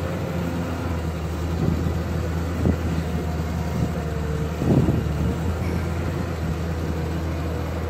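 Heavy diesel engine idling steadily, with a low even hum and no revving; a couple of short, faint sounds rise over it near the middle.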